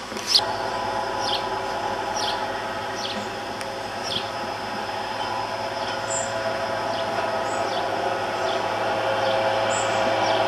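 Electric tram approaching on its track, a steady hum of its motors and running gear that grows slightly louder near the end. A small bird repeats a short falling high note about once a second.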